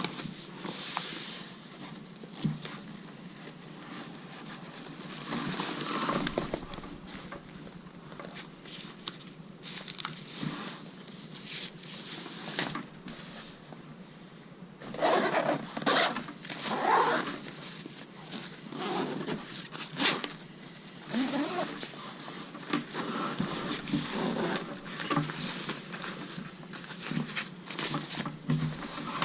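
Minaal 2.0 carry-on backpack being handled and unpacked: fabric rustling and rubbing with irregular bumps, louder handling about halfway through, and a sharp click soon after.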